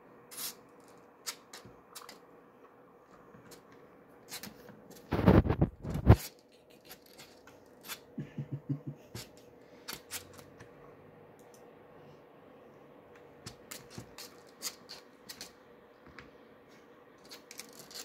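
Scattered light clicks and taps over a faint steady hum, with a loud crinkle of a plastic water bottle being handled about five seconds in.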